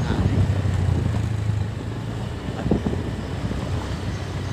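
Motorcycle engine running steadily while riding, with wind rushing over the microphone; the hum eases a little about halfway through, and there is a brief knock about two-thirds of the way in.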